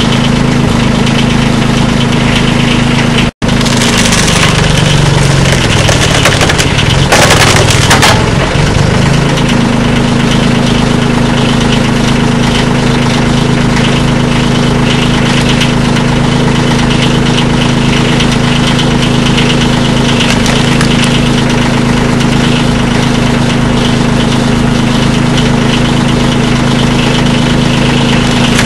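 Engine running steadily to drive the hydraulic pump of a wood shearer. A few seconds in the sound drops out for an instant, then the engine pitch sags and wavers for several seconds as it takes load, with a short loud crackling burst of wood splitting under the blade before the steady running returns.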